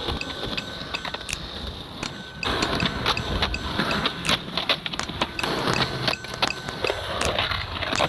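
Skateboard wheels rolling on rough concrete, with many sharp clacks and knocks of the board and trucks hitting ledges and pavement.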